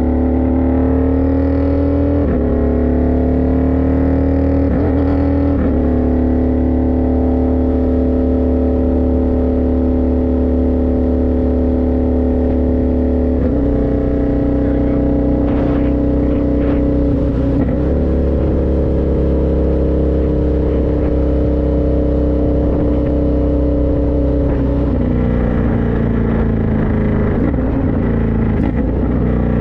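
Indian FTR1200's V-twin engine running under way on the road, its pitch stepping up and down a few times with gear changes and throttle.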